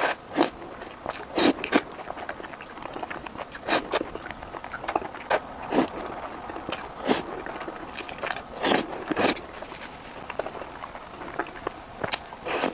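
Close-up eating sounds of a person eating saucy vinegar fried eggs with chopsticks: wet slurps and bites at irregular intervals, about one every second or two, with soft chewing between them.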